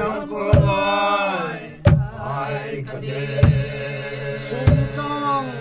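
A group of men and women chanting a traditional folk song together in long held notes, with a hand drum struck on a slow steady beat, about once every second and a quarter.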